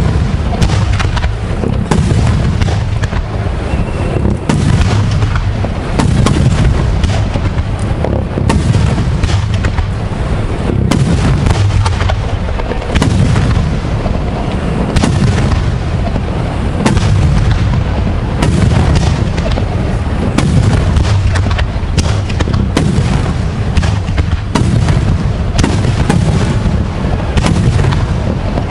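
Aerial fireworks display: shells bursting in rapid succession, a near-continuous run of overlapping booms and sharp bangs.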